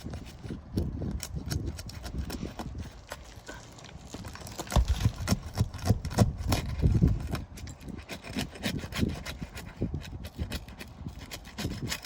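Asphalt roof shingles being pried and scraped loose with a tool: irregular scraping, rubbing and knocking, with a louder run of sharp knocks and scrapes about halfway through.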